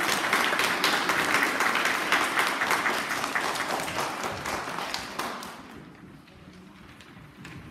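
Audience of schoolchildren applauding, dense clapping that dies away about five seconds in.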